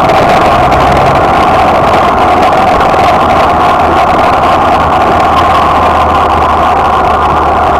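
Suzuki Bandit motorcycle's inline-four engine running steadily at low road speed, with a constant rush of wind and road noise.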